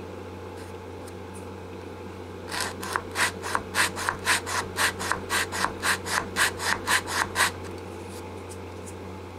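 80-grit sandpaper on a flat Lexan block being swiped by hand across the wooden neck heel of a 1966 Guild Starfire, taking the heel down for a neck reset. The scraping strokes start a couple of seconds in and run at about three swipes a second for some five seconds over a low steady hum.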